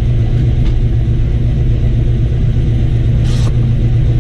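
Ford XC Falcon's 351 Cleveland V8 running steadily on the road, a low, even engine note, with a short hiss a little over three seconds in.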